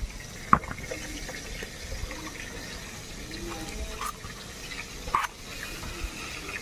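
Fleshy elephant foot yam (ol) stalks being sliced on a boti, a fixed upright blade: scattered sharp snaps as the blade goes through the stalks, the loudest about half a second in and two more at about four and five seconds.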